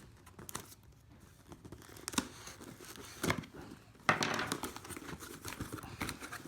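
A cardboard shipping box being opened by hand: a few scattered scrapes and knocks, then from about four seconds in a steady crinkling and tearing of packing material.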